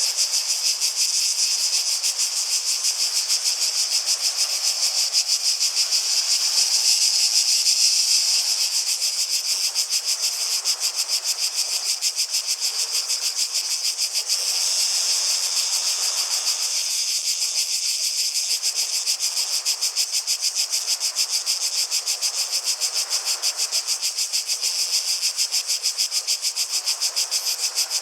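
Cicadas buzzing: a steady, high, rapidly pulsing drone, with a faint hiss underneath.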